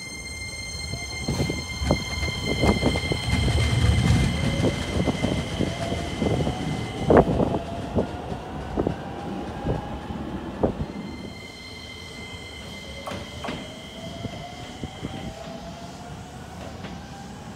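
Electric commuter trains moving through a station: a steady high whine from the traction motors, with a tone that rises in pitch as the trains pick up speed. Wheels clack and knock over rail joints.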